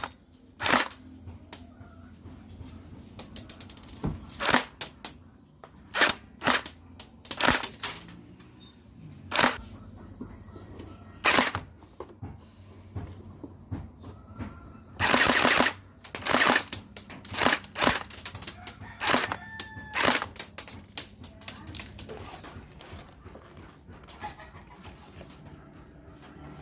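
AUG gel blaster converted to an electric airsoft gun, firing sharp single shots at irregular intervals, some in quick pairs, with a short burst about 15 seconds in.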